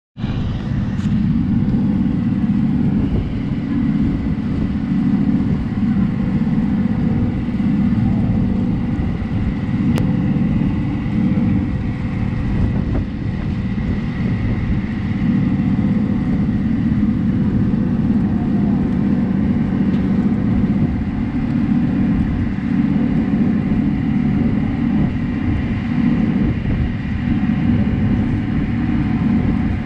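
A river boat's engine running steadily underway: a continuous low drone.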